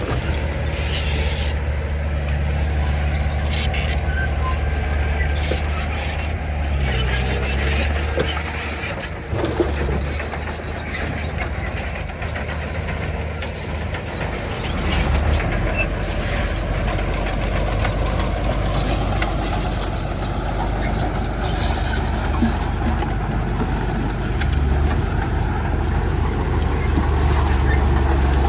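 Komatsu D31 crawler bulldozer working: its diesel engine runs steadily under load, with scattered high squeals and clanks from the steel tracks.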